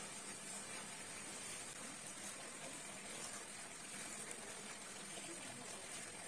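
Faint steady hiss of background room noise with a thin high whine, and no distinct handling sounds.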